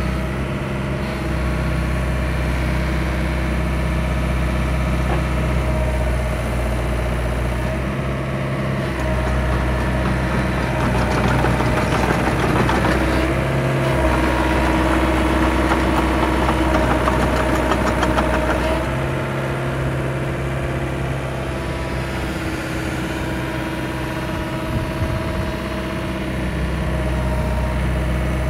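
Doosan DH60-7 midi excavator's diesel engine running steadily. For several seconds in the middle it runs louder, with a clattering rattle, before settling back to its steady running.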